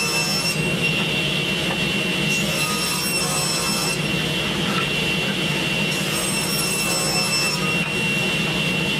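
Table saw running steadily with a high whine while ripping a cherry board fed through with a push block. Higher overtones come and go every second or two as the load on the blade changes.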